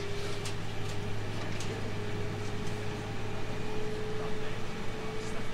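Onboard sound of a 313 series 2500-subseries electric train: a steady low hum under a held electric tone that steps up slightly in pitch about two seconds in, with a few faint ticks.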